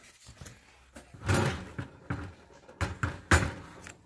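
Several knocks and clatters as small toy pieces are handled and set down on a tabletop, the loudest one near the end.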